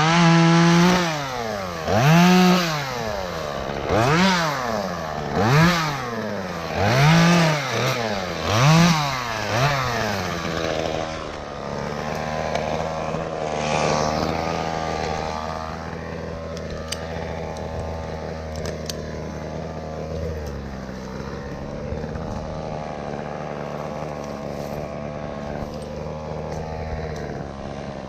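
Chainsaw revved up and back down about seven times in quick succession, roughly every one and a half seconds. After about ten seconds this gives way to a steadier, lower engine hum.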